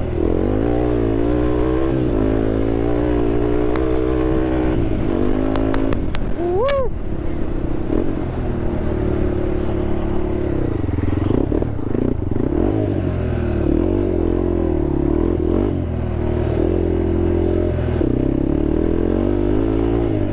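Honda TRX sport quad's engine running under way off-road, its pitch rising and falling as the throttle changes. A few sharp clacks come around six seconds in, followed by a brief rising squeal.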